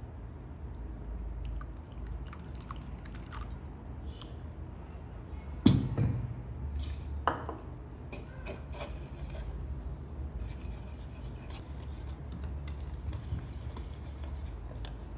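Wire whisk stirring a thin flour-and-water batter in a bowl, the wires scraping and clicking against the bowl. There is a sharp knock about six seconds in and a lighter one a second and a half later.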